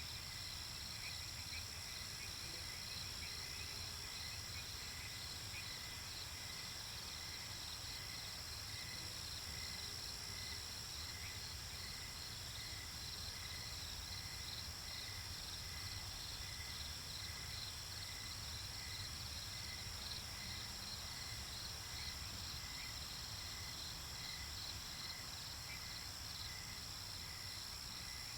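Night-time nature ambience: crickets and other insects trilling steadily, with evenly repeating pulsed chirps over a low steady rumble.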